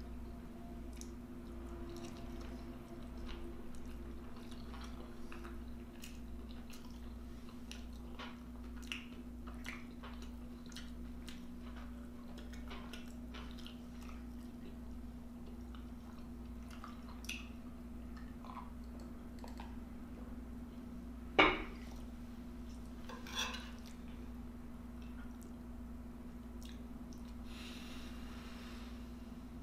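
Close-up chewing and eating sounds with small clicks of a spoon on a plate, over a steady low hum. One loud clink of utensil on dish comes about two-thirds of the way through, with a smaller one a couple of seconds later.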